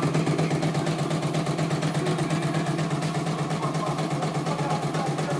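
CNY E900 computerized embroidery machine stitching a design, its needle running in a rapid, even rhythm over a steady motor hum.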